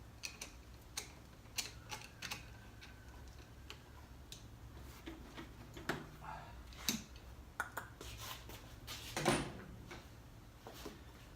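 Scattered light clicks and knocks of hand tools and plastic parts being handled while the stock air intake is taken off, with a louder clatter about nine seconds in.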